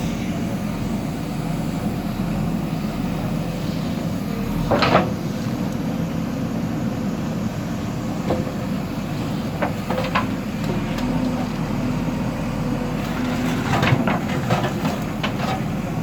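Diesel engine of a JCB earthmover running steadily, with several sharp knocks and clanks over it. The loudest comes about five seconds in, a few lighter ones follow, and a cluster of knocks comes near the end.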